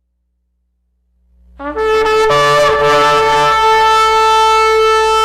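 A loud, brass-like chord fades in out of silence about a second and a half in and is held steadily, several pitches sounding together, with an added lower note swelling in and out. It is the kind of trumpet-like drone presented as a mysterious 'sky trumpet' sound.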